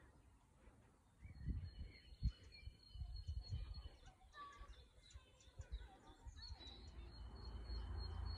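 Small garden birds singing, with high chirps and trills, over bursts of low rumbling noise on the microphone.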